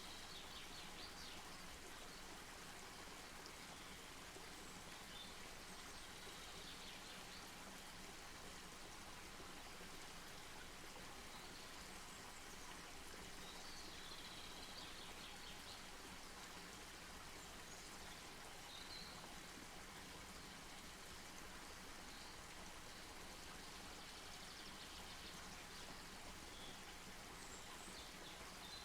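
Faint, steady outdoor ambience: an even hiss with faint high chirps now and then.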